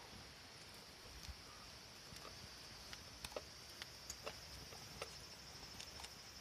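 Faint ambience: a steady high-pitched drone with scattered sharp clicks and ticks, about a dozen spread irregularly through it.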